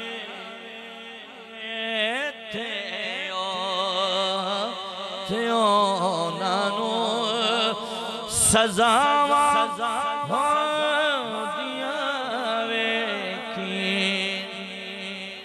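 A man's voice singing a Punjabi devotional kalaam (naat) unaccompanied, in long ornamented phrases with wide vibrato, over a steady held note underneath. There is a short knock about eight seconds in.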